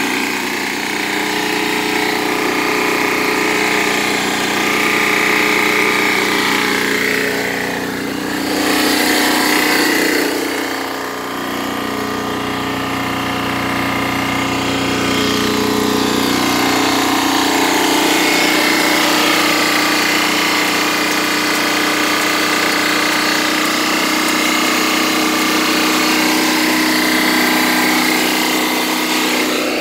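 Rescue truck's onboard 6,000-watt Lombardini diesel generator running steadily, powering the truck's flood lights.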